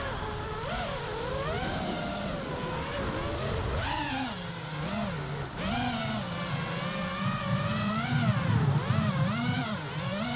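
FPV quadcopter's brushless motors and propellers whining, the pitch rising and falling over and over with the throttle as it flies.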